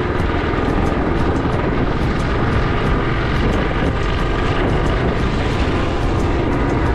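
Motorcycle on the move, its engine running steadily under a heavy, even rush of wind noise, with scattered light clicks and rattles.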